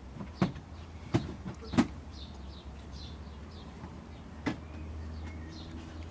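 Four sharp knocks and clunks spread over a few seconds as things are shifted about in an open car boot, over a steady low hum.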